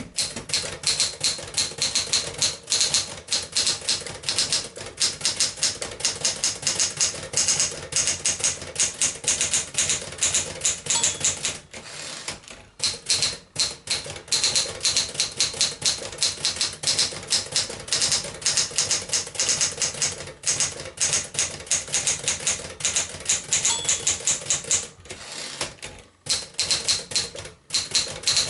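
1964 Penncrest Caravelle 10 manual portable typewriter, built on a Smith-Corona 5AX mechanism, being typed on: a fast, steady stream of sharp key strikes with a few brief pauses.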